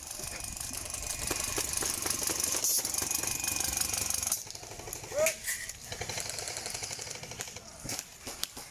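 Airsoft guns firing on full auto: a rapid rattling stream of shots for about four seconds, then thinning to scattered clicks.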